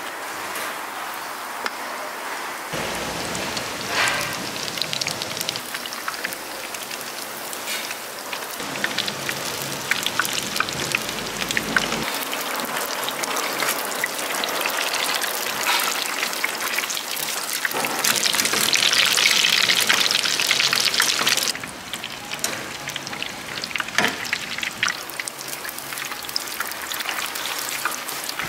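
Battered vegetable leaves deep-frying in hot oil: a steady sizzle thick with small crackles, louder for a few seconds about two-thirds of the way through, then dropping suddenly.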